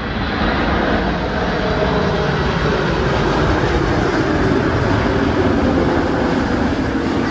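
Boeing 747-8F's four turbofan engines at approach power as the freighter passes low overhead on final: a loud, steady jet rumble with a whine that slowly falls in pitch as it goes by.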